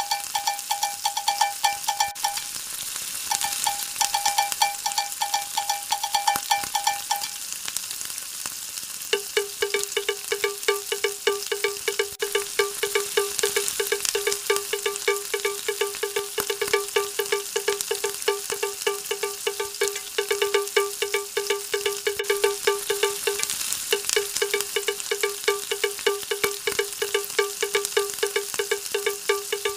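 Background music made of rapidly repeated chime-like notes, shifting to a lower note about nine seconds in, over a faint sizzle of onions frying in oil.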